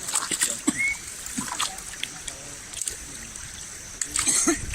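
River water trickling and splashing around a large fishing lift net, with a few brief short knocks.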